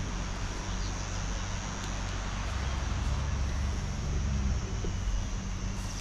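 Steady outdoor rushing noise with a low rumble that grows louder about halfway through and eases off a second or two later.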